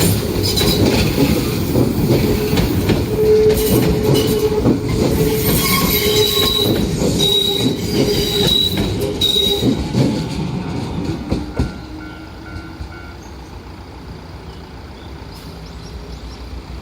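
Enshū Railway train passing over a level crossing: rail clatter and rumble with wheels squealing in high, broken tones. The train noise drops away suddenly about twelve seconds in, leaving a quieter steady background.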